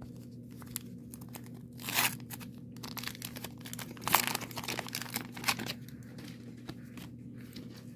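Waxed-paper wrapper of a 1990 Donruss baseball card pack being crinkled and torn open by hand, in a few short bursts: one about two seconds in, then a run of crinkling and ripping from about four to five and a half seconds.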